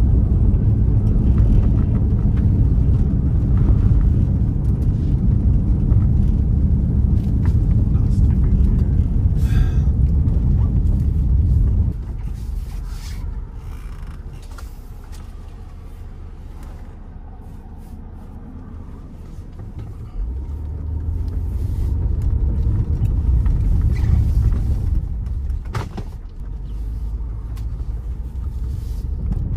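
Low, steady road and wind rumble inside a moving car's cabin. About twelve seconds in it drops off sharply to a quieter hum, then rises again a little after twenty seconds, with a few scattered clicks.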